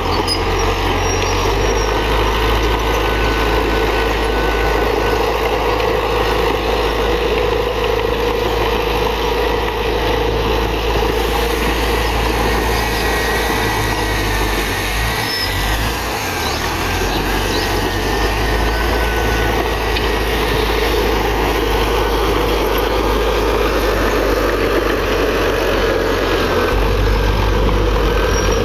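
Komatsu D31PX bulldozer's diesel engine running steadily under work, a deep continuous rumble with a faint high whine coming and going, easing briefly about halfway through.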